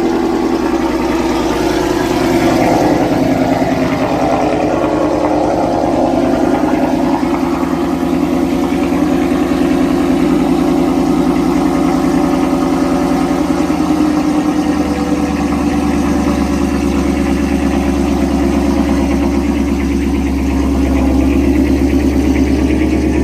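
S550 Ford Mustang GT's 5.0 V8 idling steadily just after start-up, heard through its cat-back exhaust on the stock manifolds, before long-tube headers are fitted. The sound is a little fuller in the first few seconds, then settles to an even idle.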